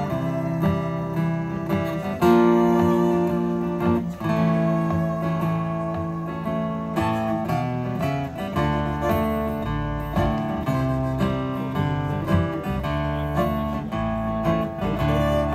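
Live country band playing an instrumental lead-in: strummed acoustic guitars with fiddle, and low bass notes joining about halfway through.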